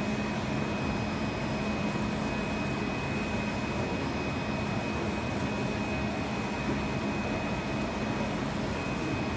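UV flatbed printer printing, its ink carriage with UV curing lamp moving back and forth over the film: a steady machine hum with a faint high-pitched tone above it.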